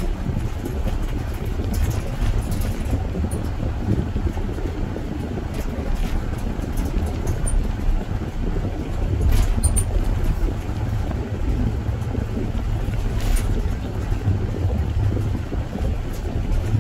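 Steady low road and engine rumble of a car driving along, heard from inside the cabin, with a few faint knocks over bumps.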